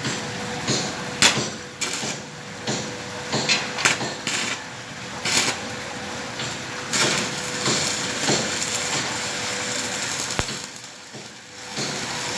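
A hammer striking metal in irregular knocks, roughly one a second, over a steady hum. A stretch of continuous hissing noise runs for a few seconds past the middle.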